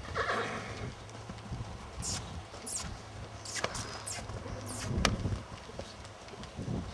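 Hoofbeats of a yearling stallion on sand footing, soft muffled thuds as it trots and then walks. One sharp knock stands out about five seconds in.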